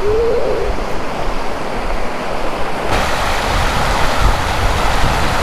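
Wind buffeting the microphone outdoors, a steady rushing hiss with uneven low rumbling gusts that gets brighter about three seconds in. A brief high child's call rises at the very start.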